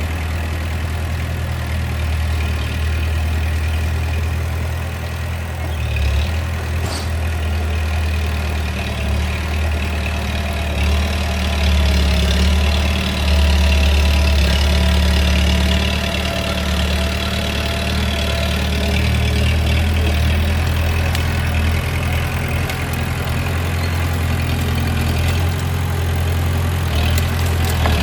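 Bulldozer's diesel engine running steadily with a low drone, growing somewhat louder for a few seconds about halfway through.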